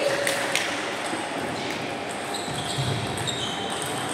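Table tennis ball knocking twice within the first second, then several short high-pitched sneaker squeaks on the wooden sports-hall floor, over the background noise of a large hall.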